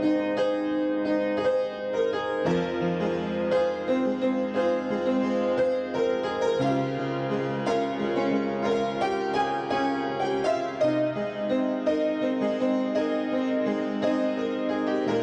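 Background music: a gentle instrumental piece of keyboard notes over sustained chords that change every couple of seconds.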